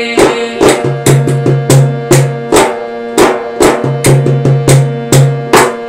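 Instrumental break in a folk protest song: a large double-headed hand drum played in a quick, steady rhythm of about three to four strokes a second, over sustained harmonium notes.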